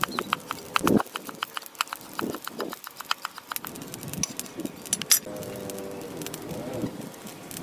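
A cleaver chopping on a wooden cutting board in quick, even knocks, several a second, stopping about three and a half seconds in. A single sharp knock comes about five seconds in.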